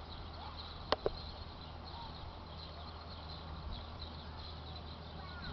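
Outdoor ambience with a steady low hum and faint chirps, broken by two sharp clicks close together about a second in.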